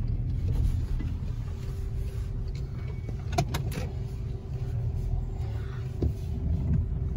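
Car cabin noise: the low, steady rumble of the engine and tyres of a car moving slowly, with a faint steady hum and two sharp clicks in quick succession about halfway through.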